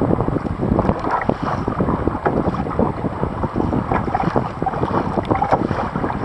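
Wind blowing across the microphone, with water splashing and sloshing from kayak paddle strokes.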